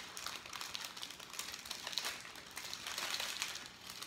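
Parchment paper crinkling and rustling as its edge is folded over and creased down by hand, with many small crackles, sealing a fish packet for baking.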